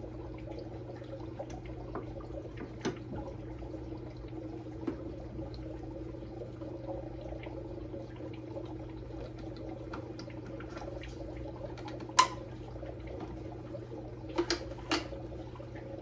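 Scattered sharp clicks and knocks of plastic canister-filter parts being handled, the loudest about twelve seconds in and a few more near the end, over a steady low hum.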